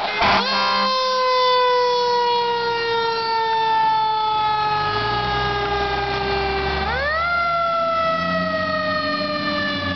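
Fire engine siren winding up twice. It rises quickly just after the start and coasts slowly down in pitch, then winds up again about seven seconds in and coasts down again. The truck's engine runs underneath.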